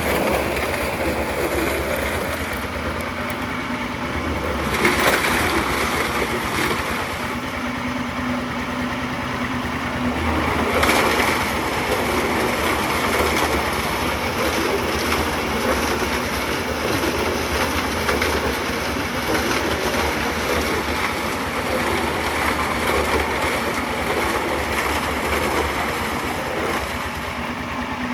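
A steady engine runs at construction-site machinery pitch, with gritty scraping and crunching over it that swells briefly about five and eleven seconds in.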